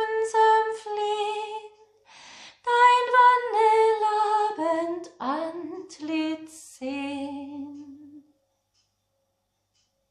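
A woman singing a German hymn solo and unaccompanied, ending the verse on a long held low note that stops about eight seconds in.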